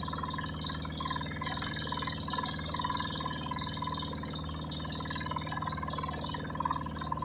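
A small boat's engine running steadily at constant speed, a low even drone with a buzzing upper tone.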